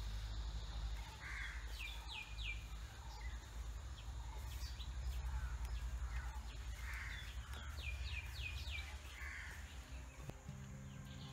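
Birds calling in the background: two bursts of short, quick falling chirps, several in a row each time, over a steady low rumble.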